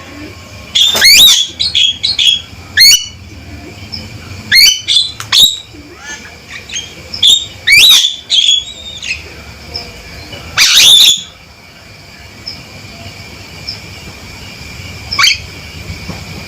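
Male Javan myna giving loud, harsh calls: a series of short, sharp sweeping notes in quick clusters through the first eleven seconds, then a single quieter call near the end. A faint steady high ringing runs beneath.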